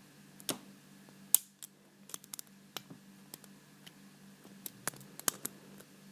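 Lock pick and tension wrench working the pins of a seven-pin Paclock PL410PRO padlock: a dozen or so small, sharp clicks at uneven intervals. A low steady hum sits underneath.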